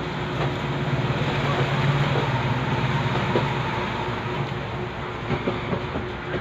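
A motor vehicle passing close by, its low engine hum swelling over the first two seconds and fading out a little after three seconds in, with a few small clicks near the end.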